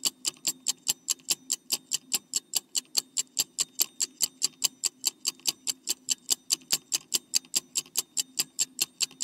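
Clock-ticking sound effect for a quiz countdown timer: a steady, rapid tick, about four ticks a second, over a faint low hum.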